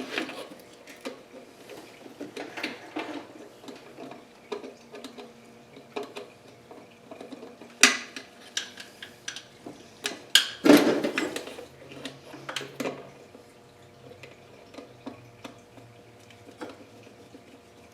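Scattered metallic clicks and clinks of hand tools and engine parts being handled, with a few louder knocks about 8 and 11 seconds in.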